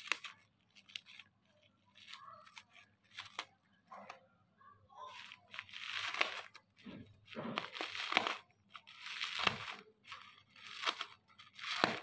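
Plastic bubble wrap being cut with scissors and pulled open, crinkling and tearing in a string of irregular bursts that grow louder in the second half.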